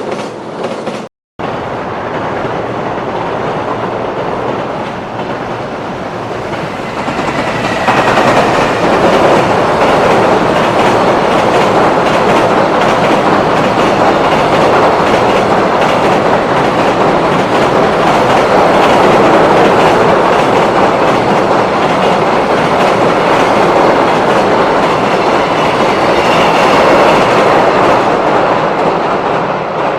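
Freight train running across a steel railway bridge, wheels clattering over the rail joints. The clatter grows much louder about eight seconds in and starts to fade near the end.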